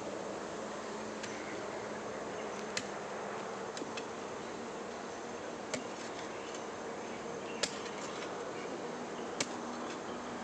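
A hoe blade chopping into loose soil, a short sharp strike every couple of seconds, over a steady drone of insects.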